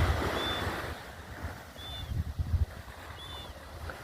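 Surf washing up the beach, easing about a second in, with wind gusting on the microphone. Faint short high chirps come about every second and a half.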